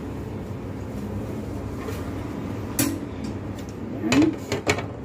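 Steady low rumble of room noise, with a sharp knock about three seconds in and a few clacks near the end as a plastic tray and bowls are handled on a kitchen counter.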